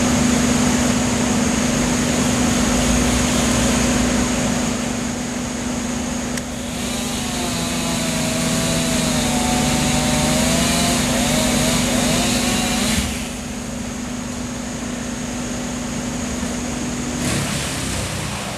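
Wood chipper running: a steady engine note under a dense rushing noise. The sound drops in level about two-thirds of the way through, and the engine note cuts out near the end.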